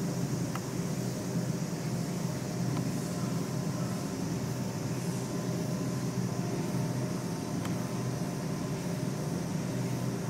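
A steady low mechanical hum with a constant high hiss above it, unchanging throughout.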